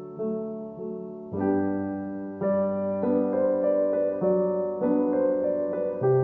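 Background piano music: a gentle, slow melody with sustained notes over a low accompaniment.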